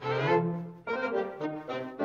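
Orchestral cartoon underscore with brass to the fore, playing two short phrases, the second starting about a second in.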